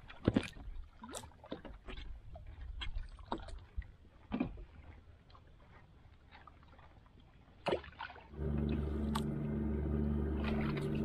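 Light knocks and water drips as a squid handline is worked over the side of a small outrigger boat. About eight seconds in, a small engine comes on suddenly and runs steadily with a low, pulsing drone.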